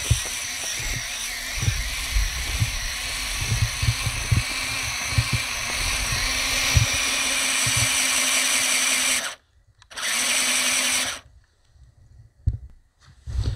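Electric motor and gearbox of an RC off-road truck whining steadily as it drives through deep snow, with irregular low thumps. The whine stops about nine seconds in, comes back for a one-second burst, then cuts off, leaving only a few thumps.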